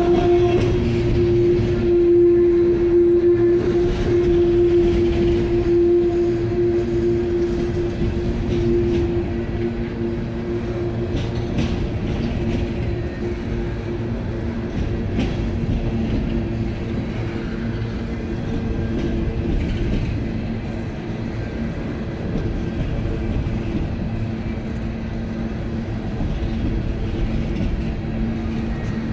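CSX open hopper cars of a freight train rolling past at close range: a continuous rumble and clatter of steel wheels on rail. A steady tone is heard over this at the start and fades away over the first ten seconds or so.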